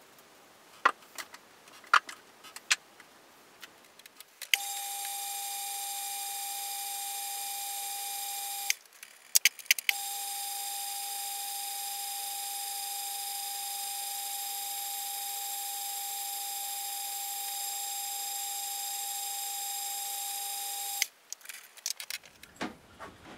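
Metal lathe running with a steady high whine while a small shaft is polished in the chuck. It stops for about a second around nine seconds in and cuts off near the end. Before and after the running, metal parts click and knock as they are handled.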